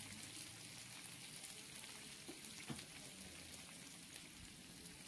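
Faint, steady sizzling from a pan of jerk chicken bites, caramelized vegetables and ackee frying, with two faint ticks around the middle.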